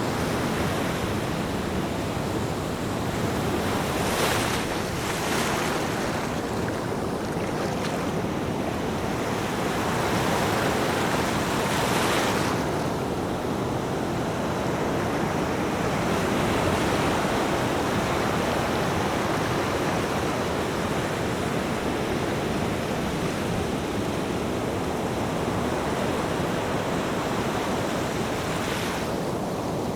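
Ocean surf: a steady wash of breaking waves, with brief brighter surges as waves break about four, five and twelve seconds in and again near the end.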